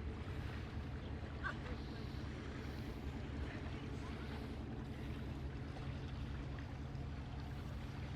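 Boat engine idling steadily with a low drone, and faint distant voices now and then.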